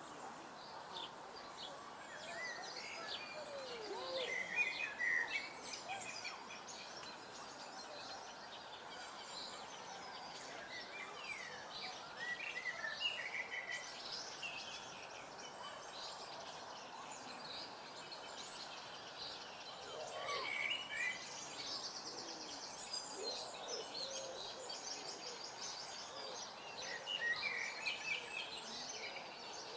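Several small birds singing and calling over a steady background hiss, with many short high chirps and whistles and a fast high trill twice in the second half.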